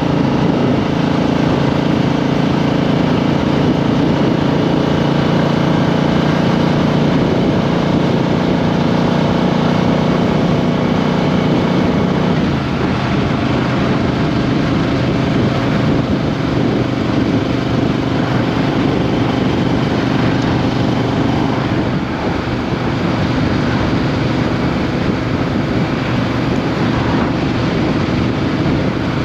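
Triumph Street Twin's 900 cc parallel-twin engine running while the motorcycle is ridden, heard from a microphone under the seat. The engine note is steady and clear at first; about twelve seconds in it turns rougher and noisier, and there is a brief drop in level about two-thirds of the way through.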